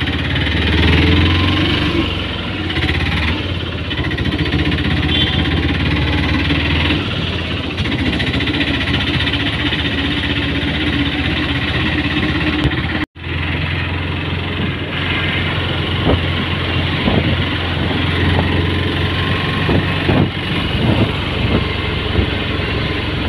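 Small engine of an auto-rickshaw running steadily with body rattle and road noise, heard from inside the open cab as it drives through traffic. The sound drops out briefly about halfway through.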